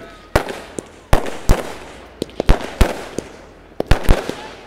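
Aerial fireworks shells bursting in a quick, irregular run of about a dozen sharp bangs, each trailing off in an echoing rumble.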